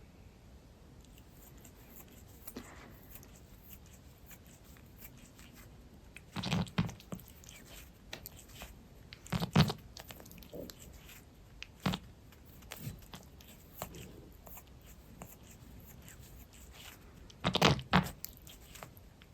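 A cat grooming herself: quiet, continuous licking and nibbling at her fur, broken by four louder, short farty noises spread through, the last near the end.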